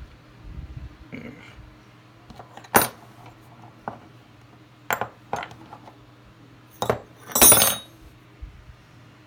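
Steel parts of a 7mm Chilean Mauser rifle bolt clinking and knocking as they are handled during bolt disassembly, in a few separate sharp strikes. About seven and a half seconds in comes a longer, louder scraping rattle of about half a second.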